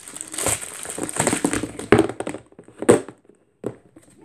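Plastic slime tubs and jars being picked up, shuffled and set down on a wooden floor: a run of rustles, knocks and clatters, the sharpest about two and three seconds in, then a brief lull.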